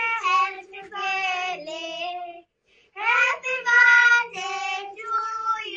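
Children singing a birthday song in high voices, in phrases of held notes with a short break about two and a half seconds in, heard over a phone video call.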